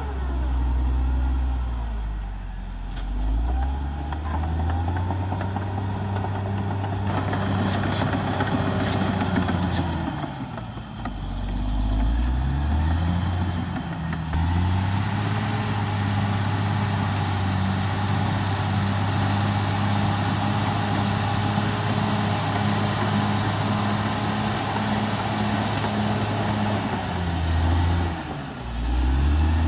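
CAT D6R XL bulldozer's diesel engine running hard under load; its engine speed sags and picks back up three times, about two seconds in, about eleven seconds in, and near the end. A cluster of sharp knocks and cracks comes about a quarter of the way through.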